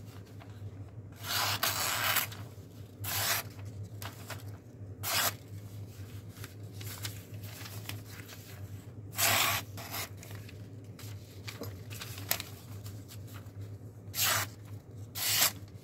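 A folding knife's edge, on the 704 Gear Urban Ranger Lite, slicing through thin phone book paper in about six separate short, hissing cuts. It is a sharpness test, and the paper cuts cleanly, a sign of a sharp edge.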